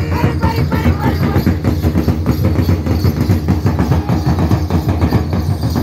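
Loud, fast, steady traditional drumming heavy in the low end, with the voices of the dancing crowd mixed in.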